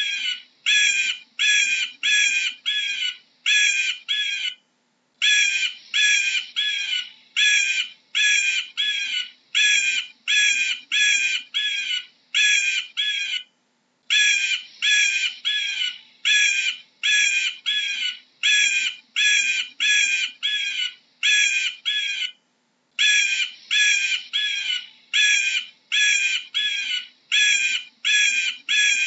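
Eagle calling: a fast series of short, harsh, high calls, about two a second. The calls come in long runs of about eighteen, broken by brief pauses roughly every nine seconds.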